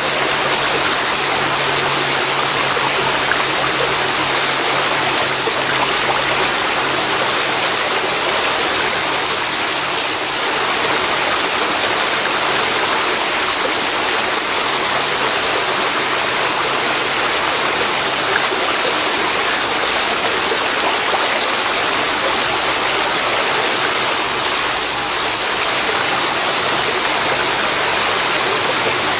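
Waterfall pouring into a river, a loud, steady rush of water that doesn't let up.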